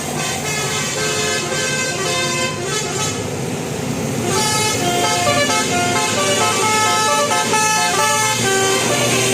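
Telolet basuri horn on a truck or bus playing a tune of short stepped notes, with a brief rushing hiss about three seconds in. A steady low engine hum joins near the end.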